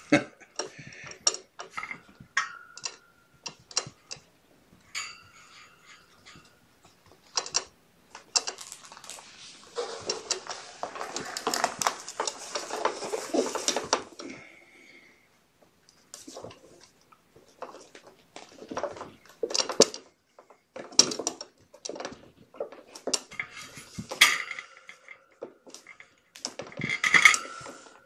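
Kittens scrambling over and knocking a plastic pet scale and its tray: irregular clicks and clatters of hard plastic, with a longer stretch of scrabbling and scraping about a third of the way in.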